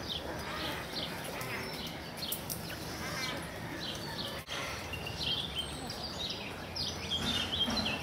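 Assorted birds chirping and calling: many short, high chirps come one after another over a steady low background hum.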